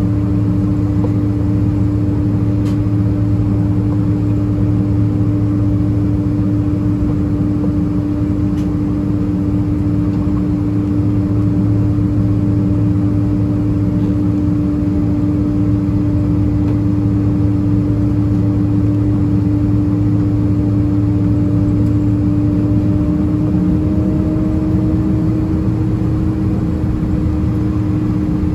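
Boeing 767-300ER cabin during taxi: steady hum of the Pratt & Whitney PW4060 engines at low taxi power, mixed with cabin air, carrying one strong steady tone. The tone rises slightly in pitch near the end.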